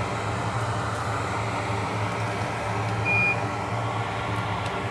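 Steady blowing hiss with a low hum from microsoldering bench equipment, while a shorted capacitor is being removed. One short, high electronic beep comes about three seconds in.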